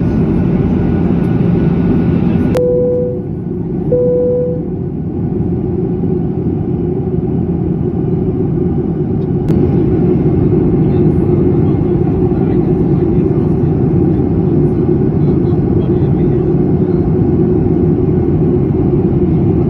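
Jet airliner cabin noise heard at a window seat in flight: a steady roar of engine and airflow. A few seconds in, two short, even tones sound about a second and a half apart over the roar.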